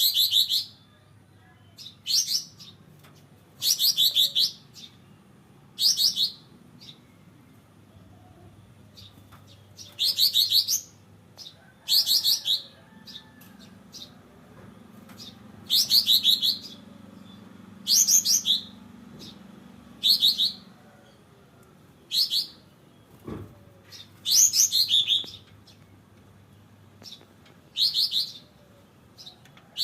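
Kapas tembak songbird singing: short, loud, high-pitched chirping phrases repeated every second or two. There is a single sharp click about two-thirds of the way through, over a faint low hum.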